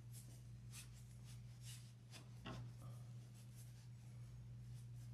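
Faint rustling and scratching of polyester fiberfill being pushed by hand into a felt flamingo head, over a steady low hum.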